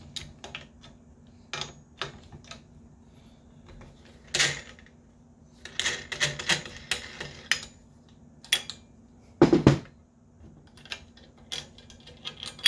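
Hand-worked clamp hardware on a metal pinball playfield rotisserie: a plastic star knob being unscrewed from a threaded stud and a metal plate lifted off, giving scattered clicks, rattles and scrapes. The loudest sound is a single thump about nine and a half seconds in.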